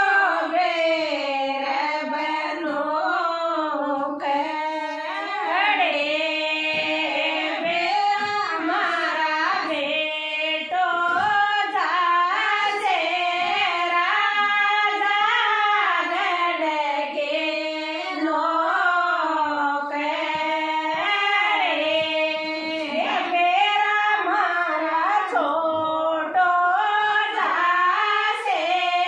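Women singing a traditional Rajasthani folk song, voices only, with no instruments heard.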